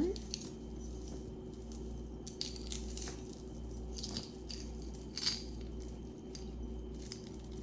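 Metal costume jewelry chains and bracelets clinking and jangling in short bursts as the pieces are handled.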